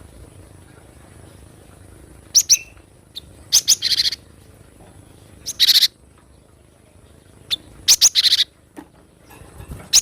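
Cinereous tit (gelatik batu) calling: short groups of sharp, quickly repeated high chirps, each followed by a harsh rasping churr, coming in four bursts a second or two apart.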